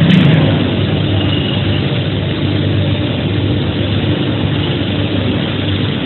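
Industrial conveyor microwave starch dryer running: steady machine noise with a low hum, and a short click right at the start.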